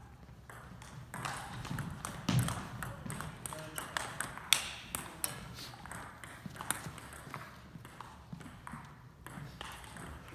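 Table tennis ball being struck and bouncing: irregular sharp clicks off the paddles and the table.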